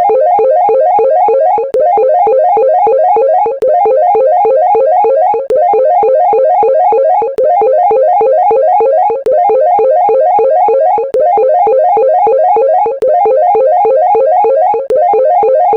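Music: a short phrase of quick, evenly spaced notes, looped over and over about every two seconds with a brief drop between repeats.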